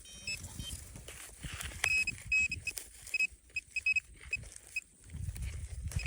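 Metal detector beeping in short, high, repeated chirps as it is passed over a dug hole, answering a buried iron target that proves to be a nail head. Low scuffing and handling noise runs underneath.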